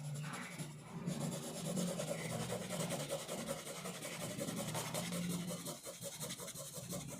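Pencil scratching on paper in quick, even back-and-forth strokes, as when shading a sketch. The strokes start about a second in.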